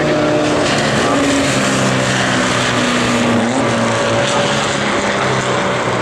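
Engines of VW-based Formula Vee racing cars running at racing speed, several engine notes at once, their pitch shifting as the cars go by.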